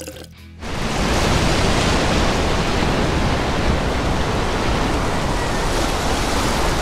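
A loud, steady rushing noise, spread evenly from deep to high pitches, that cuts in abruptly about half a second in.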